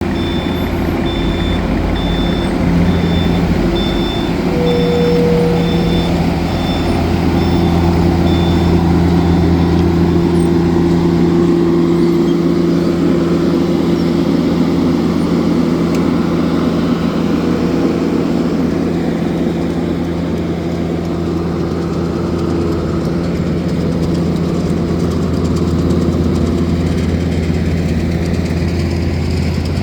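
Heavy asphalt-paving machinery engines running steadily. A reversing alarm beeps in a regular rhythm through the first nine seconds or so, then stops.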